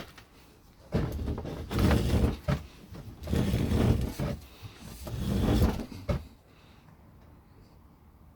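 Electrical wire being pulled through a homemade wooden-block wire stripper, the insulation scraping as it is stripped: three drawn-out scraping pulls of about a second each.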